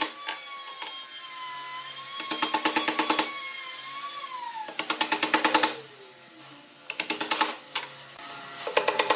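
A handheld power tool run in repeated bursts of about a second, rapidly pulsing while it runs. Between bursts a thinner whine falls in pitch around the middle.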